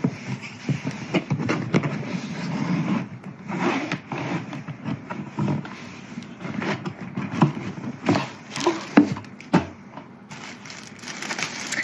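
A cardboard box and its packaging being opened and handled: irregular scrapes, rustles and knocks.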